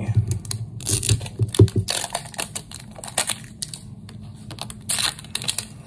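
Plastic Mini Brands capsule ball being handled and opened: a run of small sharp plastic clicks and taps, with short stretches of packaging rustle about two seconds in and near the end.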